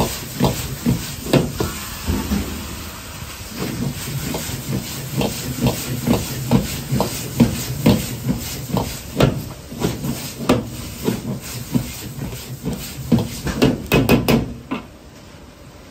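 Wok stir-frying over a high gas flame: a steady sizzle with a metal ladle knocking and scraping against the wok, a stroke or two a second. The clatter stops and the sound drops about a second and a half before the end.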